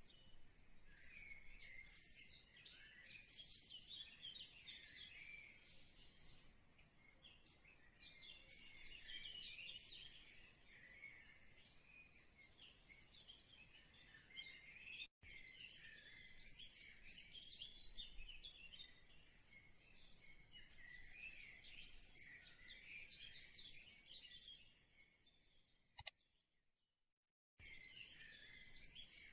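Faint birdsong: many small birds chirping and singing over one another. It cuts out for a moment about halfway through and again for over a second near the end.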